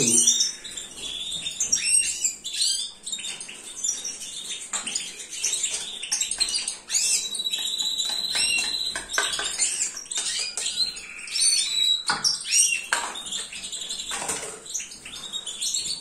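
Caged goldfinches and canaries chirping and warbling continuously, many short high calls overlapping, with a sustained note about halfway through.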